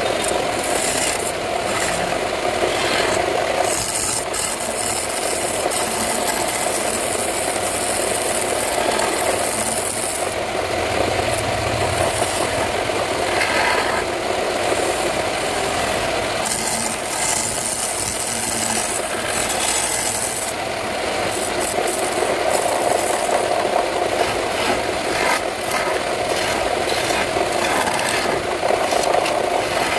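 Wood lathe running steadily while a hand-held turning chisel scrapes and cuts a spinning wooden spindle. The rasping of the tool on the wood swells and fades as the cut is pressed in and eased off.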